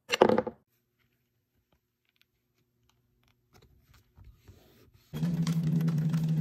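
Industrial sewing machine starting up about five seconds in and running steadily, stitching through leather panels, with a steady hum and rapid needle clicks. Before it there is a brief loud sound at the very start, then near quiet with faint handling of the leather.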